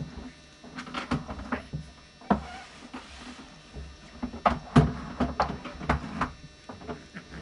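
Handling noises as an adult tends a baby on a changing table: a string of soft clicks and knocks, with the loudest knock about five seconds in and a short rustle around three seconds.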